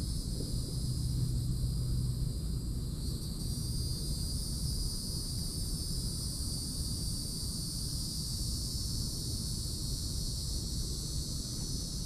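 Steady high-pitched drone of an insect chorus, over a low steady rumble.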